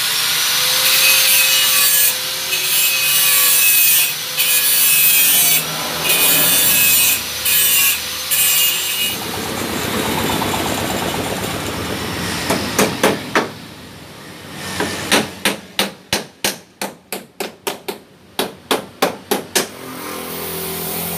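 Electric angle grinder cutting into a steel exhaust pipe, its whine and grinding noise running in several stretches as the disc bites in and lets off. Later comes a run of quick, evenly spaced strokes, about three a second.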